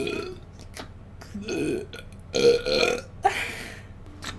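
A person burping several times in a row, each burp a short rough belch, about a second apart.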